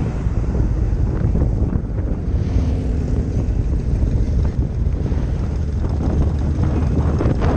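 Motorcycle engines running low and steady at idle, with wind rumbling on the microphone.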